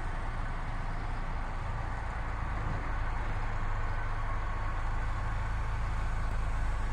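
Low, steady engine drone under outdoor background noise, growing slowly louder.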